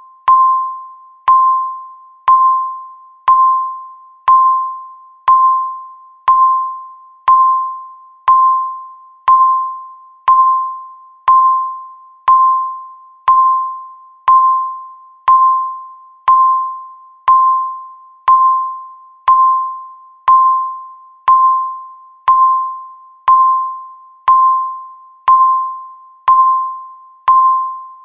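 Countdown timer beeping once a second, each beep marking one second left. Each beep is a single clear tone with a sharp start that fades away before the next one.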